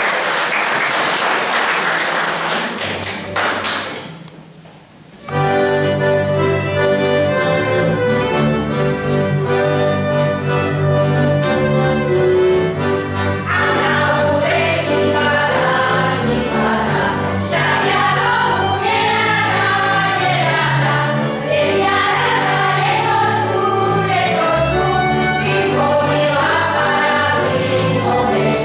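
Applause fades out, and about five seconds in a small folk band of violin, accordion and double bass starts up a tune. About eight seconds later a women's folk choir comes in singing over the band.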